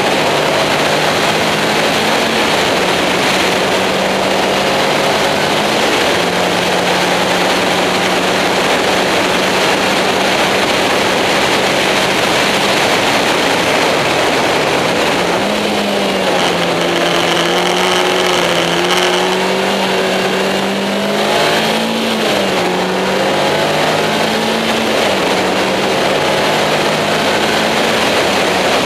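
Caterham Seven engine running hard on a race circuit under heavy wind and road noise. Its pitch steps up and down through gear changes, falls about halfway through and then climbs again.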